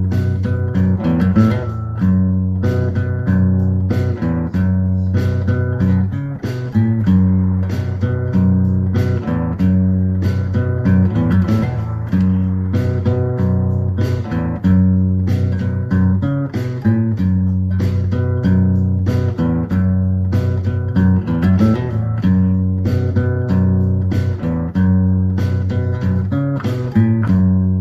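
Background music: a guitar piece with a steady low bass and regularly picked notes.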